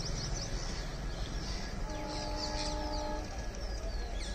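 Horn of an approaching ALCo diesel locomotive, sounding once as a single steady note for about a second, midway through. Birds chirp throughout over a steady low rumble.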